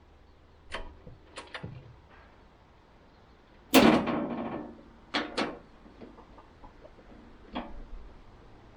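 Scattered metallic clicks and knocks from handling a bandsaw sawmill with its engine off. About four seconds in comes one louder bang with a short ring, followed by two lighter knocks a second later.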